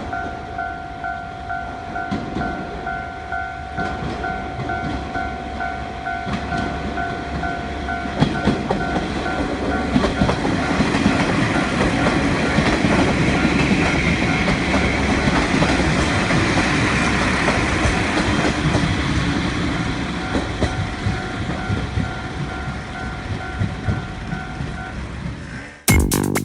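Japanese level-crossing warning bell ringing in a rapid repeating ding while a JR Kyushu train runs over the crossing, its wheels clacking over the rail joints. The train noise swells to its loudest about halfway through and then fades. The bell stops shortly before the end, when electronic music cuts in.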